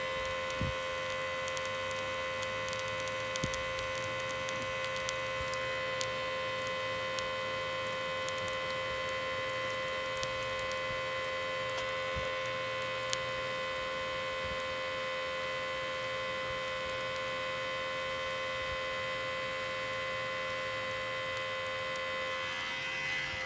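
Small handheld electric charcoal blower running steadily with an even, high-pitched motor hum as it blows air onto glowing charcoal to get the barbecue fire going; the hum stops at the very end.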